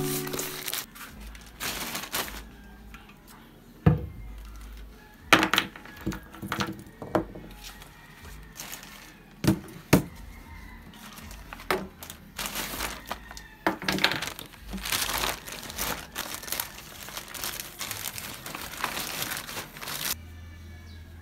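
Paper and plastic packaging crinkling and rustling in the hands as a parcel is handled and opened, with several sharp taps and knocks in between.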